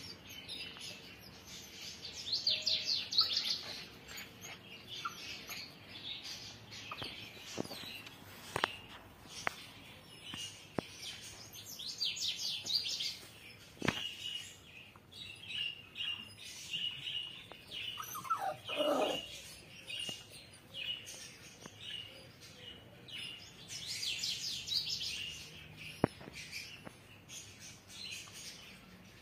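Small birds chirping and singing, with a phrase of quick descending notes heard three times and steady high chirps in between. A few sharp knocks and a short falling whine about two-thirds of the way through.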